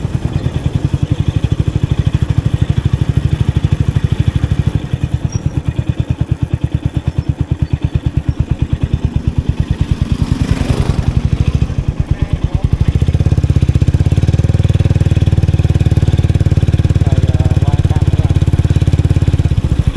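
Motorbike engine running while the bike is ridden, close to the microphone, a fast even pulse heavy in the low end. There is a brief swell of noise about halfway, and a little after that the engine grows louder.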